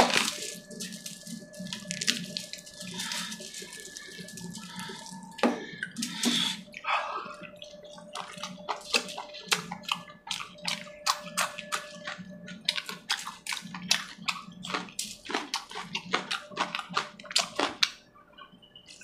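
Close-up wet chewing and lip smacking while eating chicken curry by hand, with fingers squelching through the curry: a steady stream of quick moist clicks and smacks.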